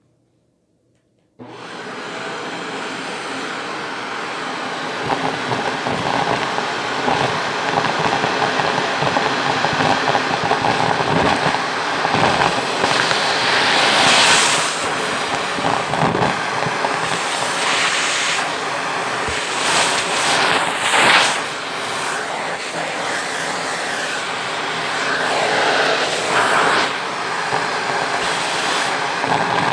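Shark vacuum cleaner switching on about a second and a half in, then running steadily as its hose nozzle sucks up a pile of dust, lint and small beads. The airflow hiss surges louder a couple of times as the nozzle pulls debris in.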